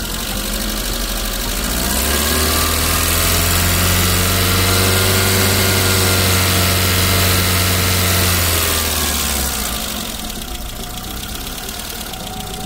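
Car petrol engine revved by hand at the throttle body: it climbs from idle about two seconds in, is held at a steady raised speed for about six seconds, then drops back to idle near ten seconds. The raised speed is the 2,500–3,500 rpm hold of a battery tester's charging-system load test.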